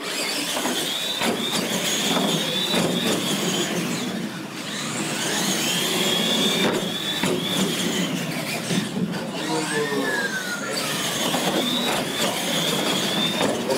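Two electric R/C monster trucks racing on concrete: a high motor-and-gear whine that rises and falls as they speed up and slow, over tyre rumble, with repeated knocks and thuds of the trucks hitting and landing off ramps.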